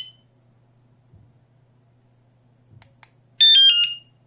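Two light clicks of the remote's button, then the wireless bicycle vibration alarm gives a short, loud chirp of about four tones stepping down in pitch, its signal that it has been disarmed.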